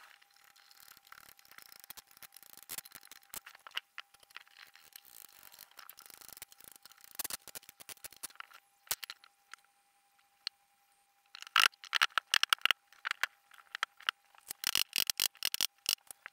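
Flat-pack particleboard TV board being put together by hand: scattered clicks, taps and scraping as panels and fittings are handled and pushed into place. Two louder bursts of rapid clicking and knocking come in the second half.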